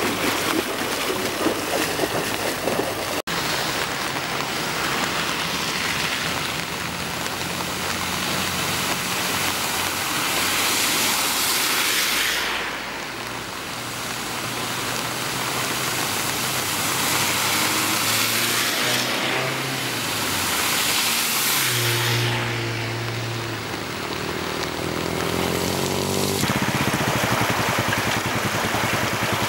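Cars driving through deep floodwater on a road, passing in two or three swells of splashing spray with engine hum rising and falling. About three-quarters through it changes to the steady rush of muddy floodwater flowing.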